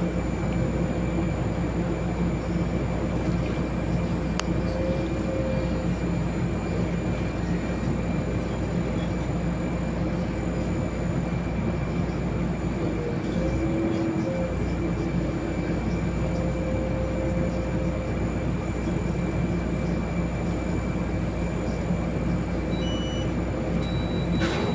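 Solaris Urbino 18 III articulated city bus standing still with its drive and on-board systems running, heard from inside near the front: a steady hum with several constant tones. A few short high beeps come near the end.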